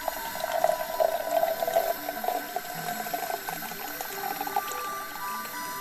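Brewed coffee pouring from a titanium French press into a stainless-steel Yeti tumbler, a steady liquid trickle into the cup. It is strongest in the first two seconds, then thins to a lighter dribble.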